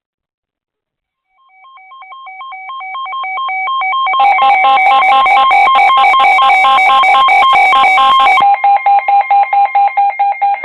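Weather alert radios sounding their electronic beeping alarms, the signal that a new severe thunderstorm warning is coming in. The pulsed beeping starts faint about a second and a half in and grows louder. A second, shriller alarm joins about four seconds in and stops after about four seconds more, while the first beeps on.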